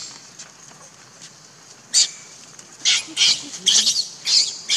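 Baby macaque screaming in short, high-pitched squeals. There is one about two seconds in, then a quick run of them in the last two seconds. These are distress cries from an infant pinned on its back by an adult.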